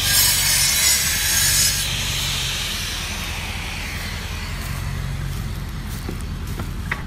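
Handheld power saw scoring the concrete driveway slab, a loud grinding hiss that fades after about two seconds, over the steady low running of a truck engine.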